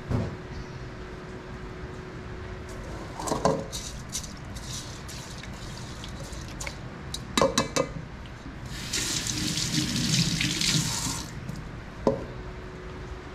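Kitchen tap running water into a rice-cooker pot in the sink for about two and a half seconds, starting a little past the middle. Before it come a few knocks and small clatters of the pot.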